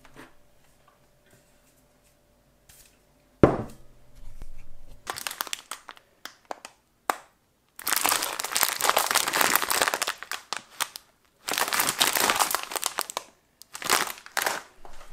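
Plastic bag of dried lentils crinkling as it is handled and turned in the hands, in several long bursts. A sharp thump comes about three seconds in.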